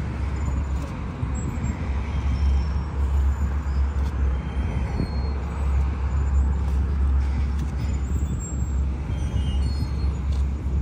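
Steady low noise of road traffic, with a few faint short high tones over it.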